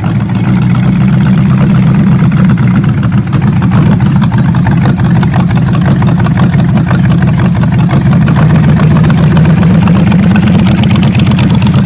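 Loud hot rod engine running at a steady idle, with a rapid, even firing pulse and no revving.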